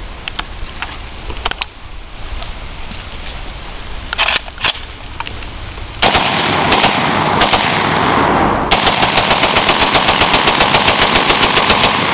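WASR-10 (Romanian AK-47, 7.62×39 mm) semi-automatic rifle being bump-fired, which makes it shoot like an automatic. After a few light clicks, loud firing sets in about halfway through and becomes a fast, even string of shots, roughly eight or nine a second, that runs to the end.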